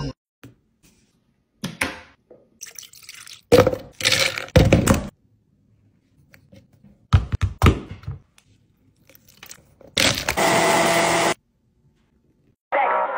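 Smoothie preparation: a series of short thunks and rustles as ingredients are scooped and dropped into a blender cup, then a blender runs steadily for about a second and a half before stopping.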